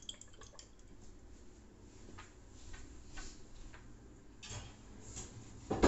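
Faint, scattered ticks and light taps of kitchen handling, with a sharper knock near the end.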